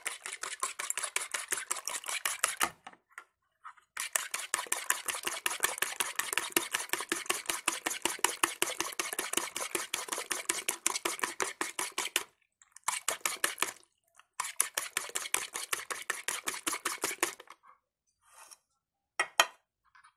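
A metal fork beating three raw eggs in a plastic bowl: fast, even clicking strokes in long runs, with brief pauses, then a few separate knocks near the end.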